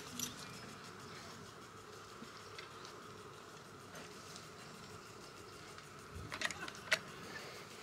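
Faint steady insect buzz, with a short cluster of sharp clicks about six to seven seconds in.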